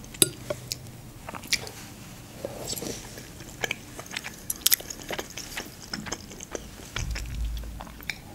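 Close-miked chewing of a mouthful of pasta and stewed meat, with many wet mouth clicks and smacks. Near the end there is a short low rumble.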